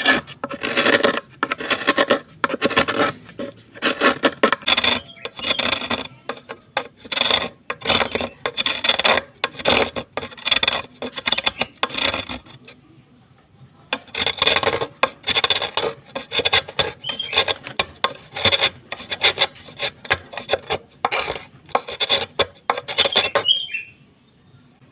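Hand tool rasping back and forth on bamboo in repeated strokes, roughly two a second, with a short pause just past the middle.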